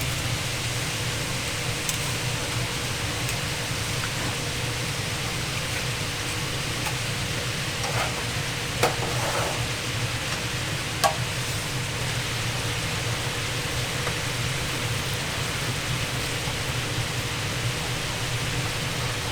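Steady sizzling hiss of tteokgalbi patties cooking, with a few light clicks about eight and eleven seconds in.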